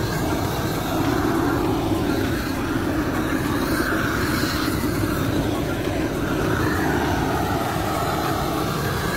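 Handheld propane torch burning steadily, a constant rushing noise with no breaks, its flame passed over faded plastic seats to heat the plastic.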